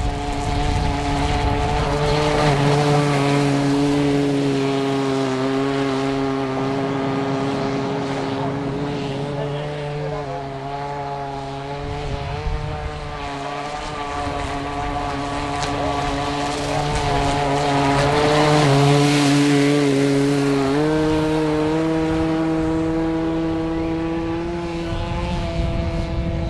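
Radio-controlled speedboat's motor running at speed: a steady buzzing drone whose pitch drifts as the throttle changes, stepping up about two-thirds of the way through, and loudest as the boat passes close.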